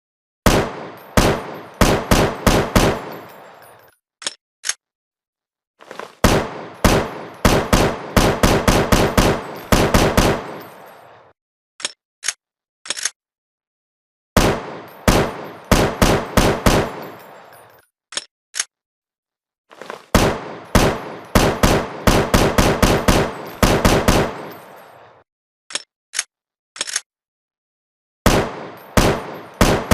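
Sound effect of an AR-7 assault rifle firing in five bursts of several rapid shots, each shot trailing off with ringing. Each burst is followed by two or three short, high metallic pings.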